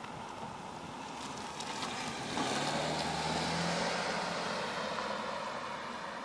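A compact SUV driving past at low speed, its tyre noise and low engine hum swelling to a peak about halfway through, then fading as it moves away.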